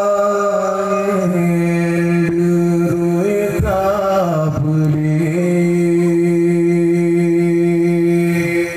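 A man singing a qasidah solo into a microphone, holding long drawn-out notes with a wavering, ornamented run of notes in the middle, and breaking off for a breath at the very end.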